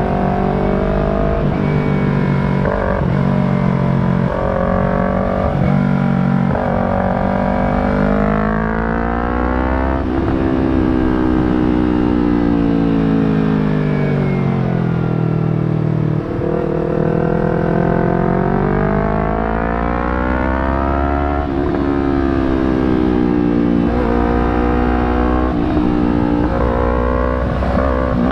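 Yamaha R3's parallel-twin engine, fitted with an Akrapovič slip-on muffler, revving under way. Its pitch climbs and falls in several long sweeps as the bike accelerates and eases off.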